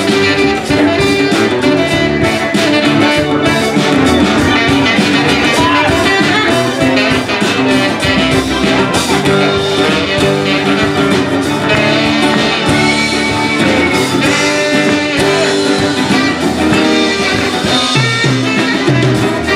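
Live band playing an instrumental passage, with the saxophone to the fore over acoustic guitar, electric bass, drums and keyboard.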